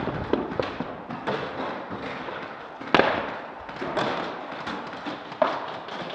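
Airsoft gunfire in a firefight: a dense crackle of shots and hits, with two louder sharp bangs about three and five and a half seconds in.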